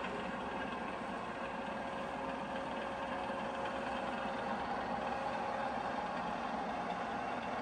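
Steady hum of running machinery, even and unchanging, with a few faint steady tones over it and no knocks or changes.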